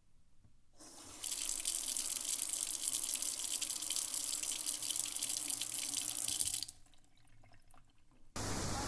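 A water tap is turned on and runs steadily into a sink for about six seconds, then is turned off, leaving a few faint drips. Near the end the sound cuts abruptly to a different steady rushing noise.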